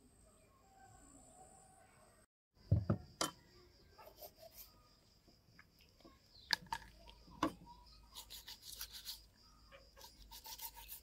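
Food-preparation handling sounds: a few sharp knocks and clicks, then stretches of quick rubbing or scraping.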